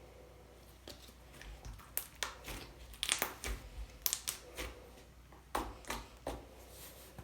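Hands squishing and stretching a soft slime, giving a string of irregular sticky clicks and pops.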